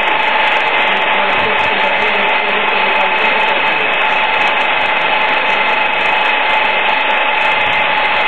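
A loud, steady whir like a small motor running, with two steady tones running through it and no change in level.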